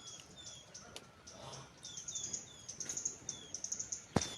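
Small birds calling: repeated short, falling chirps mixed with quick high twittering. A sharp click comes near the end.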